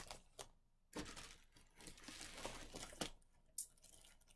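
Clear plastic bag around a bundle of wool fiber crinkling and rustling as it is handled, with a few sharp crackles; the rustling is most continuous through the middle.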